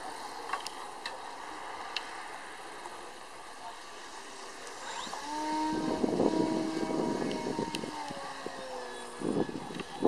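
Radio-controlled model airplane's motor droning overhead, growing louder about halfway through as the plane comes close, then easing off and picking up again near the end.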